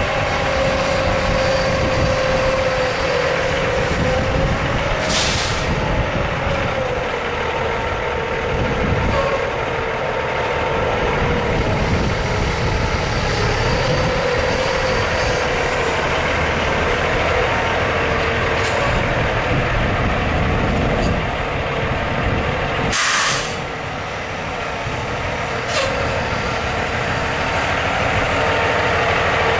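Cummins ISX 14.9-litre straight-six diesel of a 2005 International 9400i semi tractor running as the truck moves slowly, with a steady whine over the engine note. Short sharp hisses of air from the air brakes break in a few times, the loudest about three-quarters of the way through.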